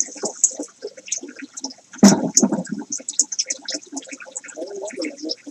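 Bubbling, splashing water in a goldfish tank as the filter's water flow and bubbles churn at the surface, with a louder gush about two seconds in.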